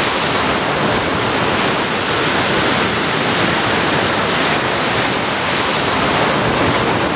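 Sea surf: a steady, loud rush of breaking waves.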